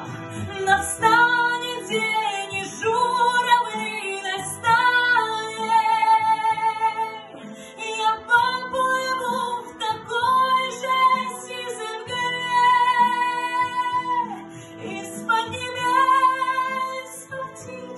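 A woman singing a slow ballad solo, holding long notes with vibrato, over a recorded instrumental accompaniment.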